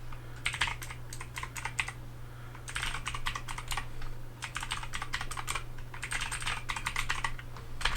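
HyperX Alloy Origins mechanical keyboard with clicky blue switches being typed on in quick runs of sharp clicks, with short pauses between the runs.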